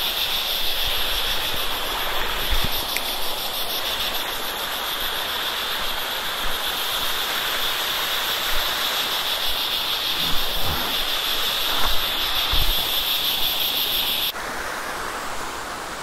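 Stream water rushing over rock slabs, with a loud, steady, high-pitched insect drone over it that cuts off suddenly about fourteen seconds in.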